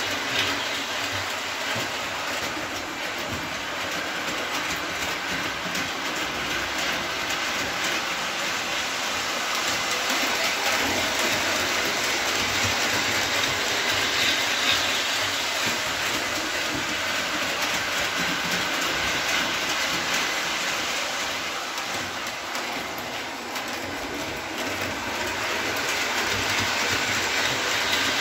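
MTH Rail King O-gauge 2-8-0 steam locomotive pulling passenger cars on three-rail tubular track: a steady mechanical running noise of motor, gears and wheels on the rails. Its sound system has been stripped out, so there are no chuffs or whistle, only the running noise.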